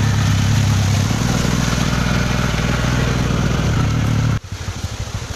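An engine running steadily at an even pitch, which shifts slightly about a second in; it cuts off abruptly about four seconds in and gives way to a quieter, rapidly pulsing engine sound.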